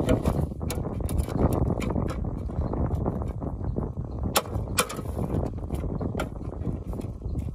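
A knife blade cutting and prying open a tin can, with scattered sharp metallic clicks over a steady rushing noise.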